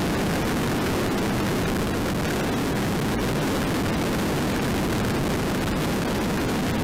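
Steady rush of wind and road noise from a motorcycle travelling at expressway speed, picked up by a dashcam's own microphone, with no distinct engine note standing out.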